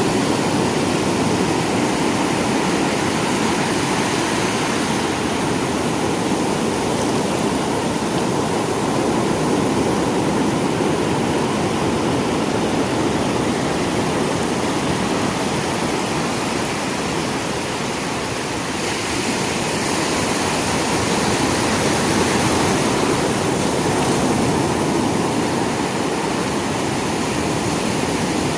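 Sea waves washing onto a shore in a continuous rushing surge that swells and eases gently, with a brief lull about two-thirds of the way through.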